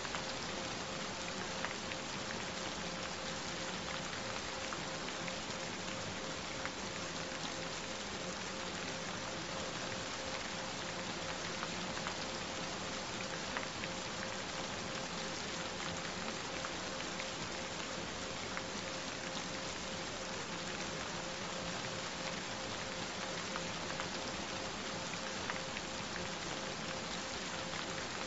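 Steady rain falling, an even hiss with scattered individual drop ticks, with a steady pure tone held underneath from the frequency track.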